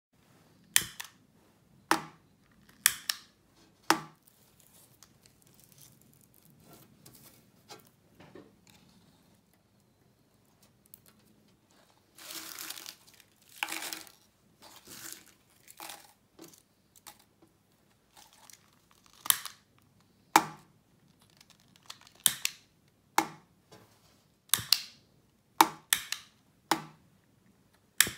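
Sharp single clicks of a piezo gas lighter's igniter being snapped, four in the first few seconds and about eight more in the last nine seconds. Each spark gives off the radio burst that makes a foil-ball coherer conduct and switch on LED lights. In between, crumpled aluminium-foil balls rustle and crinkle as they are dropped and packed into a plastic cup.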